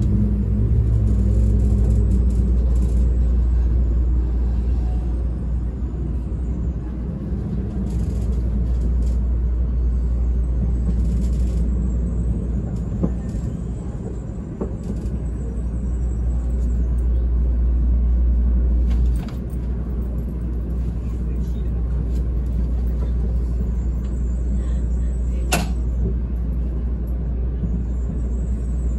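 Cabin running sound of an N700-series Shinkansen braking to a stop at a platform: a steady low rumble, with some low tones stepping down and fading in the first two seconds. The deep rumble drops off suddenly about two-thirds of the way in, and there is one sharp click near the end as the train slows almost to a halt.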